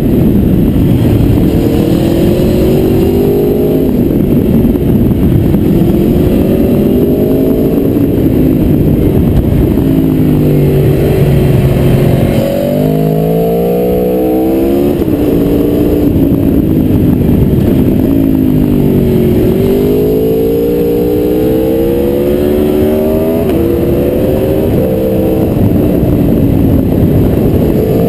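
Aprilia Tuono V4R's V4 engine heard from on board while riding. Its pitch climbs and falls again and again as the bike accelerates, shifts and rolls off into the bends.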